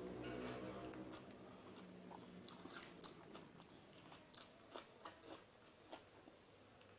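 Faint close-up chewing and biting: a person eating raw vegetables, with scattered short crunches every second or so.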